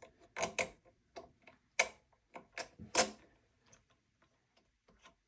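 Irregular sharp clicks and taps of a bidet seat's metal mounting plates and bolts being adjusted and turned by hand, loudest about two and three seconds in, thinning out toward the end.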